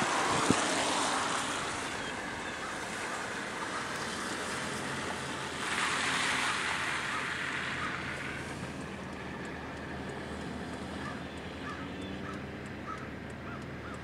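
Car tyres hissing on a wet, slushy road, heard from inside the moving car, with a louder rush of spray about six seconds in. The noise then drops to a lower, steadier hum as the car slows to a stop.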